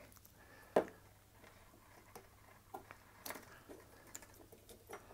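A few light clicks and taps from hands handling a sheet-metal drive frame and its wiring, the sharpest about a second in.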